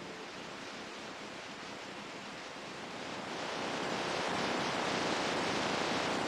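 Ocean surf: a steady wash of water noise that swells louder about halfway through.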